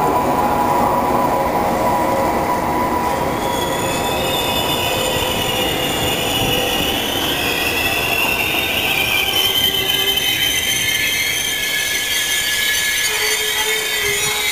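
Passenger coaches of a regional train rolling past as it slows into the station, over a steady rumble. High squealing tones set in about three and a half seconds in and shift in pitch to near the end.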